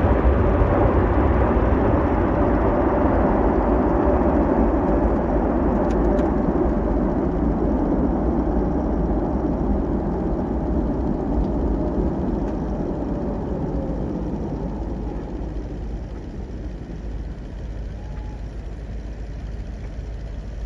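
Boeing 787 jet engines running as the airliner rolls along a snow runway: a steady rushing noise with a faint whine, fading steadily as it moves away until only a low rumble is left near the end.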